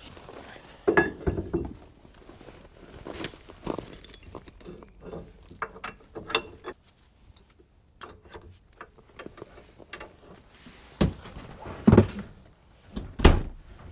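Scattered knocks, clicks and clunks of equipment being handled and moved about, with three louder thuds in the last few seconds.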